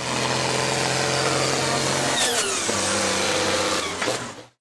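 Logo-intro sound effect: a steady, machine-like drone whose pitch drops sharply about two seconds in, settles lower, then fades out near the end.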